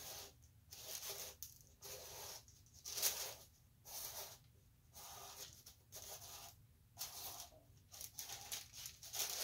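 Sharpie marker tip scratching against the cap as the workpiece is turned beneath it to draw a centring circle. The strokes are faint and hissy and come about twice a second.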